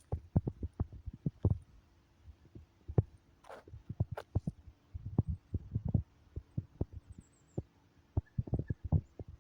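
Irregular dull thumps and taps, bunched in quick clusters, over a faint steady hum.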